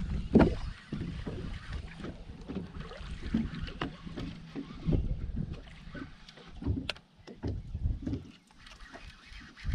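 Gusty wind rumbling on the microphone and water noise around a small fishing boat, with a few sharp knocks and clicks, the loudest about half a second in.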